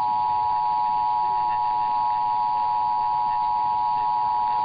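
Emergency Alert System two-tone attention signal: a steady, loud dual tone (853 Hz and 960 Hz sounded together) held without a break. It is the signal that an emergency alert or test message is about to follow.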